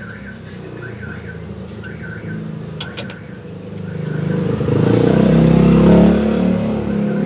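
A motor vehicle's engine running nearby, a low steady hum that grows louder about four seconds in and stays loud. Two sharp clicks sound just before the swell.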